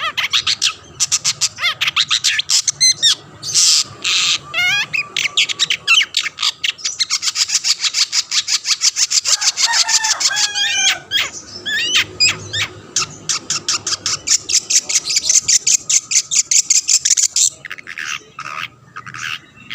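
Long-tailed shrike singing loudly in a fast, harsh, rattling chatter of many notes a second. Around the middle it breaks into a few whistled notes that slide in pitch.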